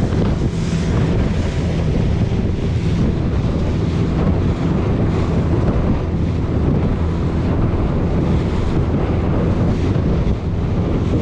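Strong wind buffeting the microphone on a boat at sea, over the steady hum of the boat's engine and the wash of waves.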